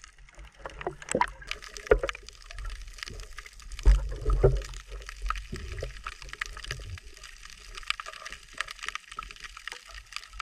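Water splashing and sloshing, with irregular small knocks and a few low thumps, the loudest about four seconds in.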